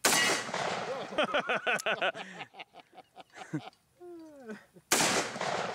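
Two shots from a Freedom Arms Model 83 revolver in .475 Linebaugh firing full-power 350-grain hollow-point loads, one at the start and one about five seconds later. Each shot is followed by a quick run of short chirps that rise and fall in pitch.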